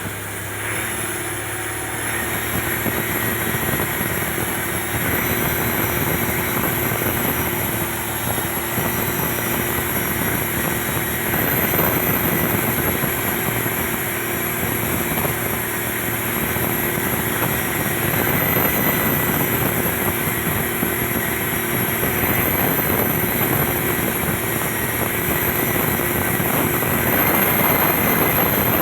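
Motorboat engine running steadily, with a high whine over a rushing noise.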